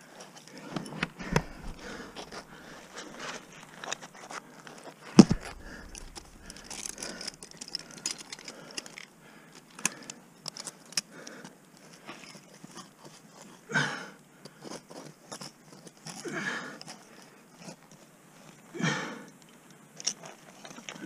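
Ice axe picks and crampon points striking and biting into waterfall ice in an irregular series of sharp, crunching impacts, the loudest about five seconds in. Several longer, rougher sounds come later.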